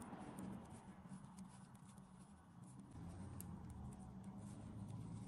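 Faint, irregular light clicks of metal knitting needles, with the soft rub of wool yarn, as stitches are worked by hand, over a low steady background hum.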